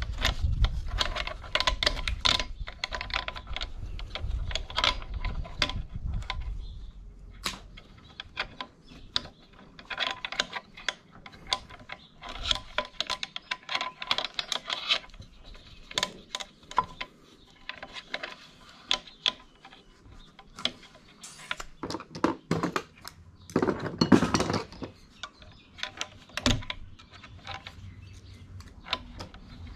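Irregular clicks, taps and clatters of metal on metal as a sewing machine's internal parts are worked with a screwdriver and handled, with a louder clatter about two-thirds of the way through.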